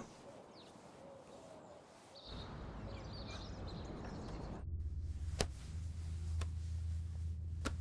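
Near silence for about two seconds, then a soft outdoor ambience with faint bird chirps. About halfway it switches to a steady low indoor hum, with a few light clicks.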